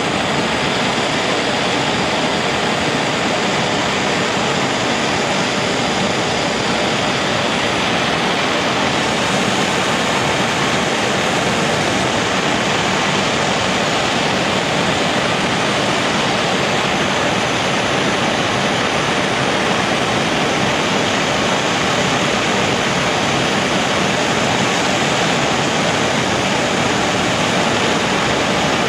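Heat gun blowing steadily with an even rushing noise as it heats freshly painted spanners to cure the coating.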